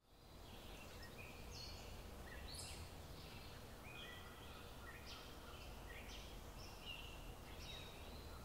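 Faint bird song: short whistled notes, a few a second, over a low steady hum.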